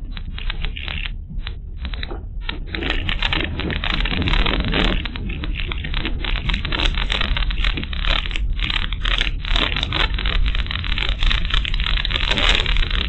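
Car driving over a rough unpaved road, heard through a dashcam inside the cabin: a steady low rumble with dense crackling and scraping, busier from about three seconds in.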